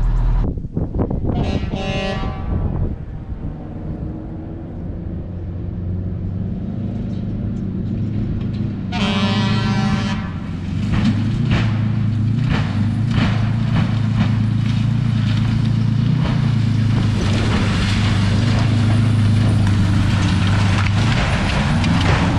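An old fire truck's engine runs steadily as the truck is driven, growing louder through the second half. Its horn blasts twice, about a second and a half in and again about nine seconds in.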